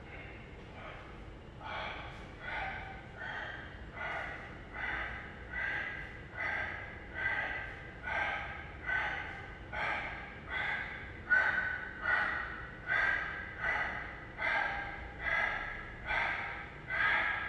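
A man breathing hard in a steady rhythm while doing dumbbell curls. He forces out a short, loud breath with each rep, a little more than one a second, starting about two seconds in.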